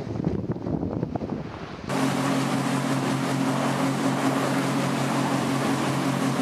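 Wind buffeting the microphone and the sea rushing past a VO65 racing yacht. About two seconds in, the sound switches suddenly to a louder, steady machinery hum with a rushing noise over it.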